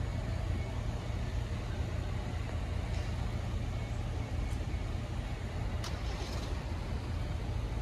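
Steady low outdoor rumble of traffic and wind, with a faint click about six seconds in.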